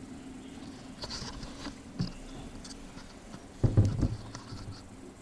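Light clicks and rustling from handling small parts, with one louder, dull knock about three and a half seconds in.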